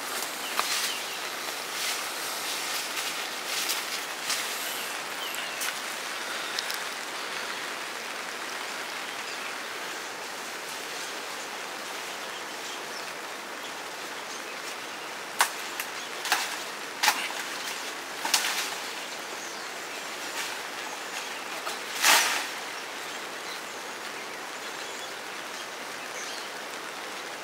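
Hot oil sizzling steadily as sel roti fries, with scattered sharp clicks and knocks, the loudest about two-thirds of the way through.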